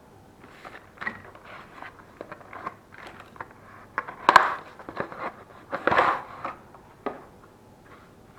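Packaging of a set of King Racing connecting-rod bearings being opened and handled by hand: a run of irregular rustles, crackles and scrapes, loudest about four seconds and six seconds in.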